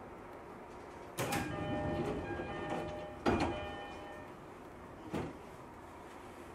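Sliding passenger doors of a JR East E231-series commuter train working at a station stop. A door chime of several steady tones starts about a second in, a sharp thud about two seconds later as the doors meet, and a smaller knock near the end.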